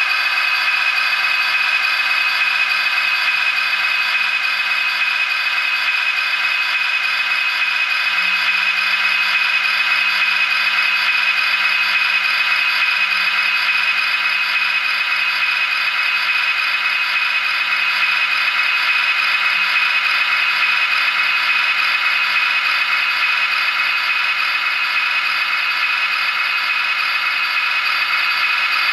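Sampled Class 67 diesel engine sound, the GM-EMD 710-series engine, played by a Zimo sound decoder through an OO gauge model locomotive's small speaker. It runs steadily at an even level, with a thin tone that has little bass.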